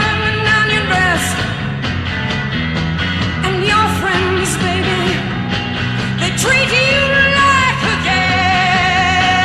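Rock music playing: a full band with a steady beat and a lead melody line that bends and wavers in pitch.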